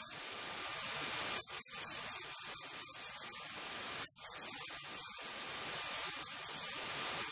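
Steady hiss like static, heaviest in the high range, with a faint steady whine underneath.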